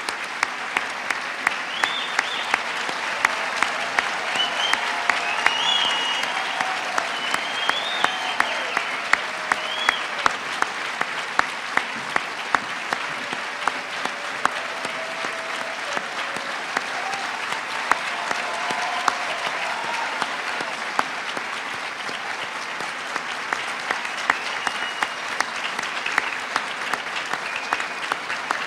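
A large audience applauding steadily, a dense sustained clapping.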